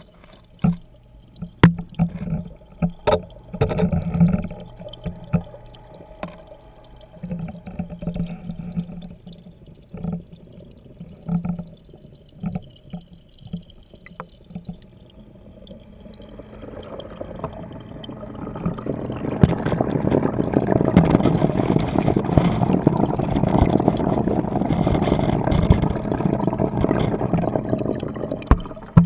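Pond water heard underwater through a GoPro's waterproof housing on a pole: scattered knocks and clicks over a low hum at first, then from about halfway a rising, churning rush of water that stays loud until near the end.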